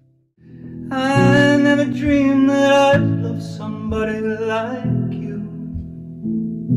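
After a moment of silence, held keyboard chords and a man's singing begin: a song played and sung at the keyboard.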